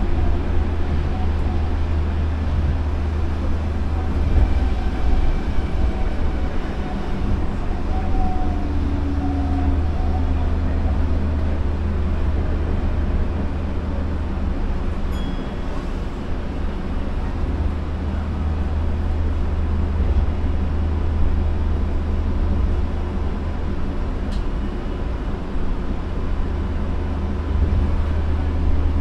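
Osaka Monorail train running along its elevated concrete guideway, heard from inside the front cab: a steady low rumble from the rubber-tyred car and its motors. A faint whine that shifts in pitch comes through for a few seconds in the first third.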